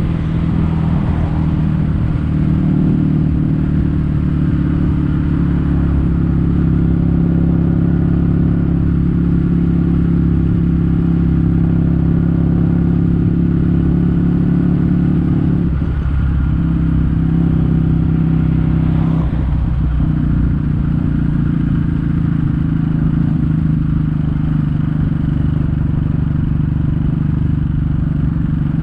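Kawasaki W800's air-cooled parallel-twin engine running under way, exhausting through Yamato stainless-steel Cabton-style silencers in a steady, low beat. The note breaks briefly twice a little past the middle.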